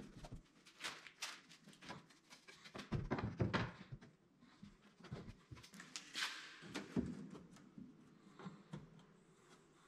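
Hand-handling noise on a plywood miter-saw dust hood: scattered light knocks and taps, with a short stretch of rubbing about six seconds in, as a flexible sheet is fitted over the front of the saw.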